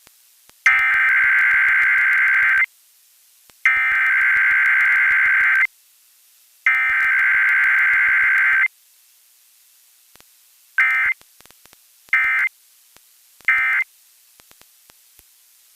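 Emergency Alert System SAME data bursts broadcast over the radio: three header bursts of harsh, modem-like two-tone warbling, each about two seconds long and a second apart, followed by three short end-of-message bursts. No attention tone or spoken message comes between header and end-of-message, as in a weekly test.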